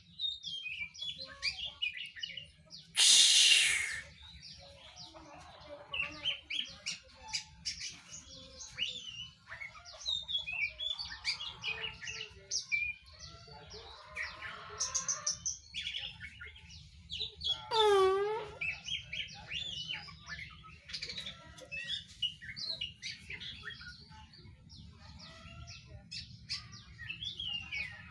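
Young oriental magpie-robin (kacer) giving short chirps and twitters. About two-thirds of the way through comes one strange, rich call that swoops down and back up in pitch. A loud rushing noise lasts about a second near the start, and a steady low hum runs underneath.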